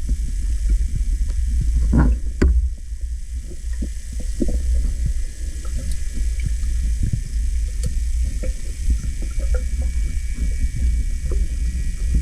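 Underwater ambience recorded by a camera in a waterproof housing: a steady low, muffled rumble with scattered clicks and crackles throughout, a louder cluster of them about two seconds in.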